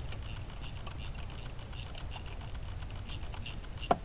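Ratchet wrench clicking in light, uneven runs of ticks as a coil-pack bolt is turned, with one sharper click just before the end.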